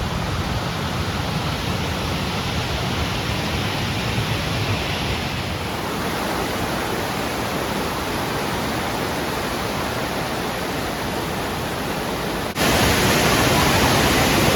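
Steady rush of a waterfall. About three-quarters of the way through it cuts suddenly to a louder, brighter rush, as if from closer to the falling water.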